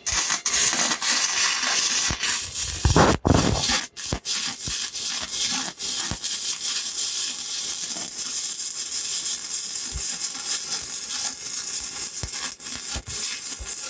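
Flux-core wire-feed welder arc crackling and sizzling steadily on a thin steel exhaust pipe, with a few brief breaks around three to four seconds in as the trigger is let off and pulled again. The pass burns another hole through the pipe.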